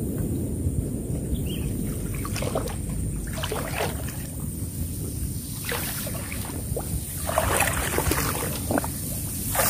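Steady low rumble of wind on the microphone, with scattered short clicks and rustles from about two seconds in, growing denser near the end.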